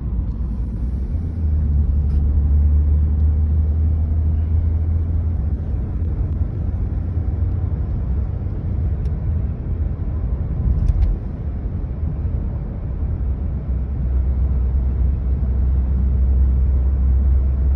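Steady low rumble of a car driving, heard from inside the cabin: engine and tyre drone that eases off for a couple of seconds about two-thirds of the way through, then comes back.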